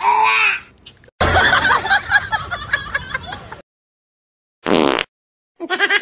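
A person laughing and giggling in short bursts, broken by brief silent gaps.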